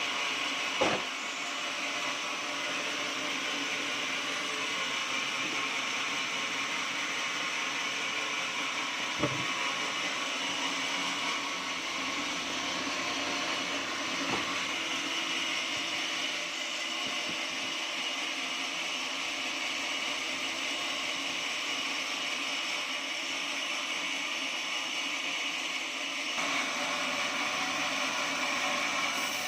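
Portable sawmill running steadily as it saws through oak, a constant mechanical whine with a few short sharp knocks.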